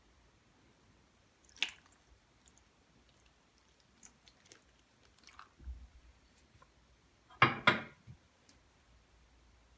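Water poured from a cut-glass bowl into a metal baking tray of aubergines and minced meat, with small splashes and drips. Near the end come two sharp knocks close together, the loudest sounds here.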